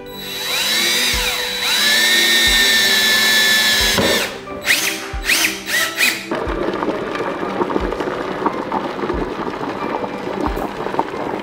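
Cordless drill driving screws through a drapery bracket into the wall: the motor whine rises as it speeds up, runs steadily for about three seconds and stops, then comes in several short bursts as the screw is seated. After that, a steady hiss like that of a handheld garment steamer takes over, with soft background music throughout.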